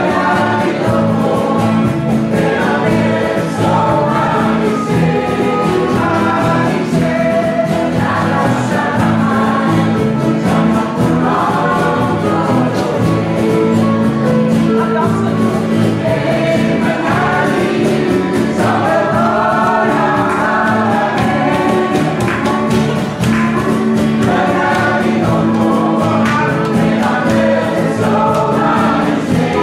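Indisch choir singing a song in chorus, accompanied by a live band of guitars, bass guitar and percussion.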